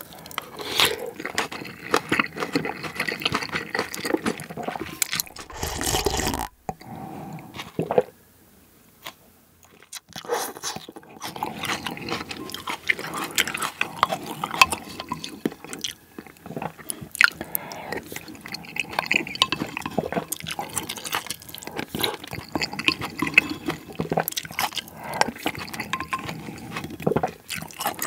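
Close-miked eating sounds of pork and rice soup: chewing, slurping of broth and the spoon scraping and knocking in a porcelain bowl. About eight seconds in there is a lull of a couple of seconds where it goes almost quiet.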